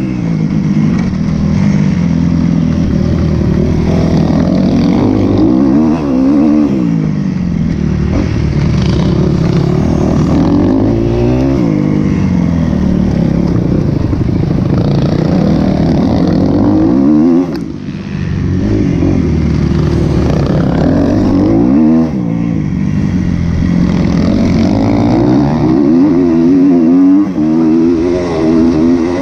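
2012 Kawasaki KX250F's single-cylinder four-stroke engine, heard from on the bike, revving up and dropping back again and again as the rider accelerates, shifts and backs off. A little past the middle the engine note drops away sharply for a moment before picking up again.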